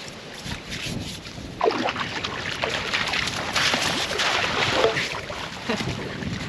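Shallow river water splashing and sloshing as a person wades through it hauling a wild pig carcass.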